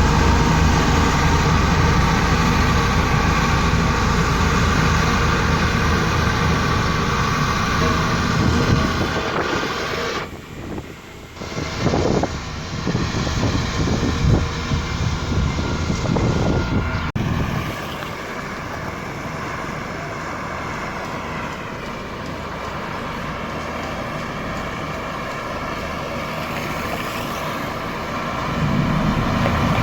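Engines of heavy road-construction machines running in several stretches that change abruptly. A steady heavy engine hum runs for about nine seconds, then a quieter, uneven stretch with some knocks follows. About seventeen seconds in it becomes a steadier, softer run, and a louder low engine rumble returns near the end.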